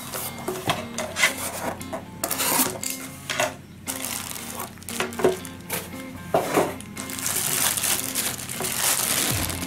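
Cardboard box handled with scattered knocks and scrapes as its flaps are opened and the contents reached for, then a longer stretch of plastic bubble wrap crinkling as a wrapped figure is pulled out, over soft background music.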